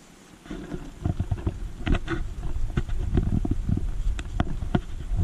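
Water heating in a pot over a Vargo alcohol stove inside its windscreen, rumbling with irregular ticks and pops as it nears the boil; the rumble starts about a second in.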